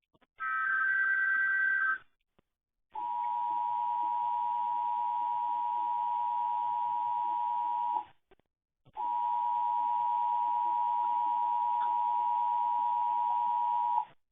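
Emergency Alert System test tones received over AM radio: the end of a SAME digital header data burst, a warbling data tone lasting about a second and a half, then the EAS two-tone attention signal (853 and 960 Hz sounded together). The attention signal plays as a steady tone for about five seconds, breaks off for about a second, and resumes for another five seconds.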